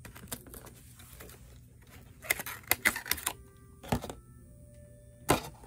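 Paper cover being peeled off a foil pizza tray: crinkling aluminium foil and paper in a run of sharp crackling clicks about two seconds in, then a low knock near four seconds and one more sharp crackle near the end.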